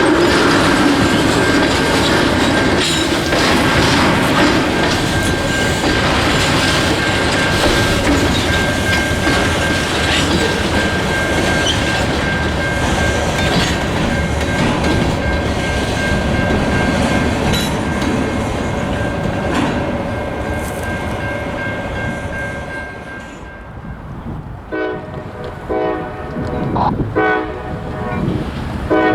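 CSX freight cars rolling past with the clickety-clack of wheels over rail joints and a steady high squeal. The noise fades about 23 s in, and then comes a series of short, sharp blasts on the locomotive's K5LA air horn.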